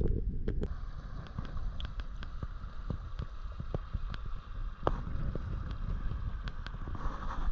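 Creek water gurgling and sloshing around a GoPro in its waterproof housing, with many scattered clicks and knocks. The sound is muffled at first and turns clearer and brighter about half a second in.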